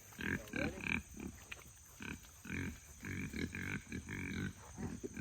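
Several hungry pigs grunting and squealing in a rapid run of short calls while waiting to be fed.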